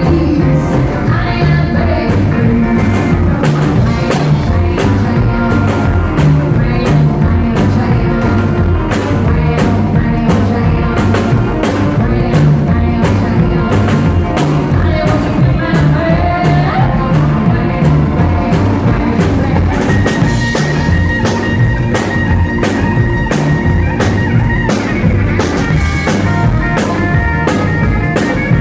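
Live rockabilly band playing an up-tempo song: a driving drum-kit beat under electric guitar, with a long held guitar note coming in about two-thirds of the way through.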